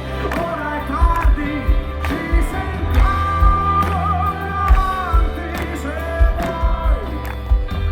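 Live pop-rock band playing a ballad in concert, with bass and drums under long held melody notes that could be singing.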